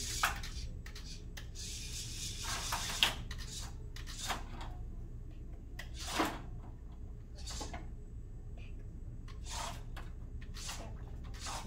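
VEX IQ competition robot driving on the field in short, irregular bursts: its motors whir and its plastic parts clack against the plastic risers. A steady low hum runs underneath.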